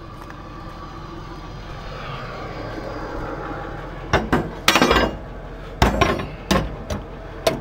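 Steady traffic noise with a passing vehicle's engine, then, from about four seconds in, a run of loud metal clanks and a ringing scrape from steel tow gear being handled.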